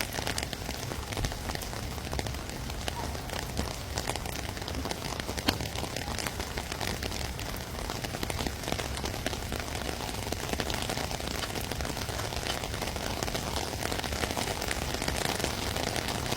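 Heavy rain falling steadily, a dense hiss with many small drop clicks on hard surfaces and one sharper tap about five seconds in.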